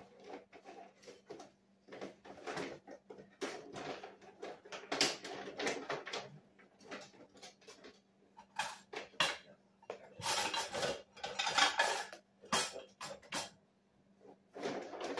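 Kitchen utensils and dishes clattering as someone rummages through a kitchen drawer and the dish rack, in irregular bursts of clinks and knocks, loudest about ten seconds in.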